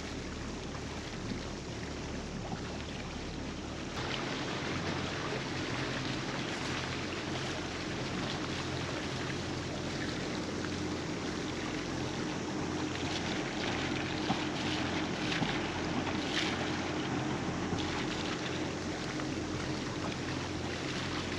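A 50 ft catamaran under way: a steady wash of water along the hulls and wind noise over a low steady hum. The mix changes abruptly about four seconds in.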